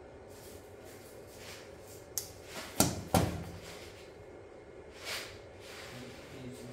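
Hand tools being handled: four sharp clacks within about a second, a little over two seconds in, as a pair of wire crimpers is set down on the car's painted ledge, followed by a softer rustle near the end.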